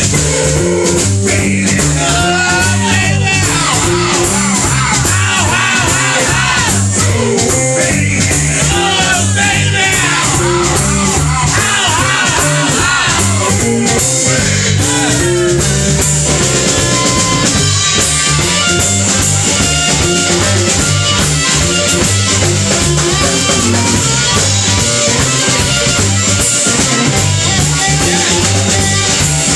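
Live electric blues band playing with electric guitar, bass guitar and drum kit. A blues harmonica blown into a microphone wails over the first half, its notes bending and wavering.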